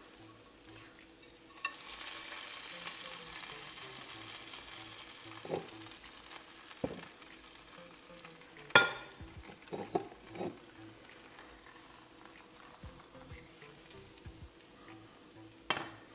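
Cheese fat sizzling in a very hot granite-coated nonstick frying pan as a silicone spatula works under the burnt cheese crisp. The sizzle is strongest in the first few seconds, and a few sharp knocks of pan and utensil come through, the loudest about halfway.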